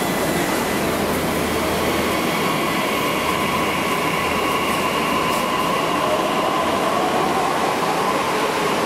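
Delhi Metro train at an underground platform, giving a steady, loud running noise with high whining tones. A faint whine rises in pitch in the second half.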